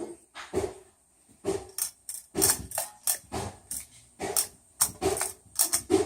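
A dog barking repeatedly, about two short barks a second at uneven intervals.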